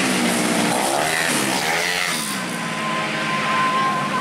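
Racing automatic scooters going past at high revs, their engine pitch rising and then falling as each one passes, twice in the first half; a steady high engine note holds through the second half.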